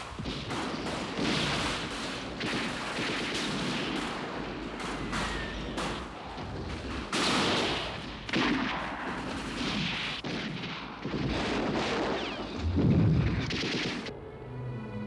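Battle sounds: repeated gunfire cracking in quick irregular volleys, with a heavy explosion boom, the loudest sound, about two seconds before the end. Orchestral music comes in just at the end.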